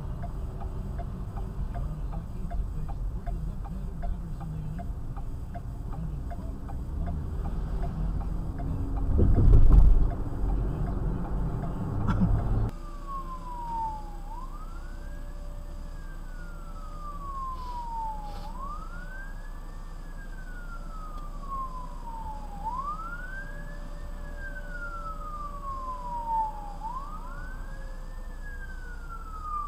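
Vehicle engine and road rumble with a loud rumbling burst about a third of the way in. The rumble then stops abruptly and an emergency-vehicle siren wails, its pitch sweeping up and down about once every four seconds.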